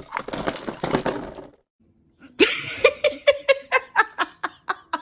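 A short burst of clattering noise, then after a brief pause a person laughing in a rapid run of short ha-ha pulses, about five a second, trailing off.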